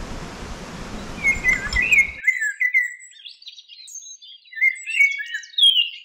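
Songbirds chirping and trilling in quick, varied phrases. A steady rushing noise underneath cuts off suddenly about two seconds in, leaving only the birdsong.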